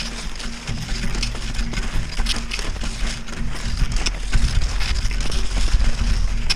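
Wind buffeting the action camera's microphone with an uneven low rumble, over the swish and crunch of cross-country skis and poles in snow, with a few sharper crunches from pole plants.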